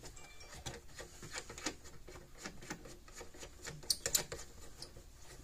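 Small irregular clicks and rubbing of a terminal knob being screwed by hand onto the freshly oiled threaded output terminal of an electric fence energizer, with a couple of sharper clicks about four seconds in.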